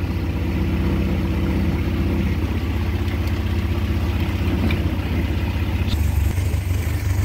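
A 1961 Land Rover's freshly rebuilt four-cylinder petrol engine running steadily on choke, moments after a cold start.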